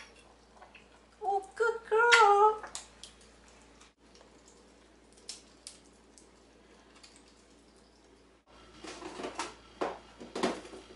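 A brief wavering voice about a second in. Then come faint scattered clicks of an African grey parrot's beak working at a nut shell, and a run of louder clicks and knocks near the end.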